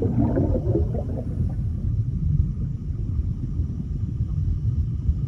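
Underwater sound effect: bubbling gurgles for about the first second, over a steady deep rumble that carries on.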